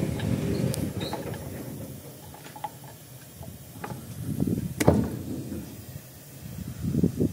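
Hand tool clicking and scraping against a steel truck wheel rim at the tyre bead, a few separate metal clicks with a sharper knock about five seconds in.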